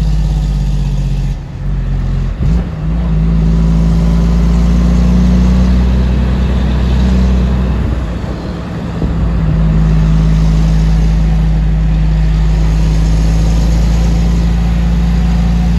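Tractor-trailer's diesel engine heard from inside the cab, pulling steadily uphill. Its note drops away briefly twice, about a second and a half in and again around eight seconds in.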